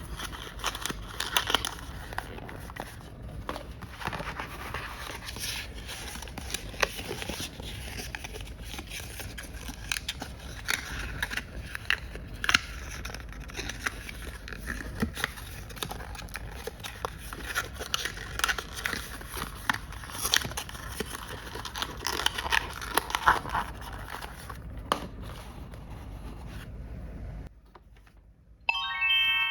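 Plastic toy cash register parts and packaging being handled: many small clicks, scrapes and crinkles. Near the end, a short electronic chime from the toy.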